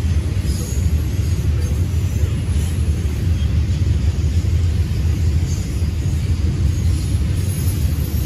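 Double-stack intermodal container freight train rolling past, a steady low rumble of wheels on rail.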